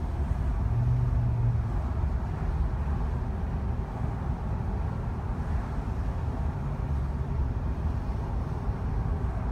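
Car driving at a steady low speed: a low, even rumble of engine and tyre noise, with a brief low hum about a second in.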